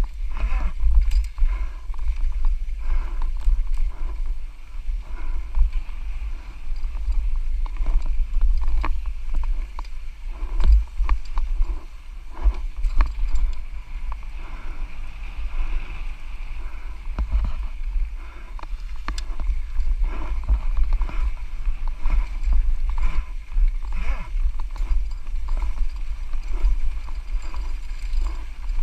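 Wind buffeting the rider's camera microphone with a heavy, uneven rumble, over the rattle and clatter of a Santa Cruz Nomad mountain bike descending a rough trail at speed. Irregular knocks and clicks come through as the tyres and suspension hit rocks and roots.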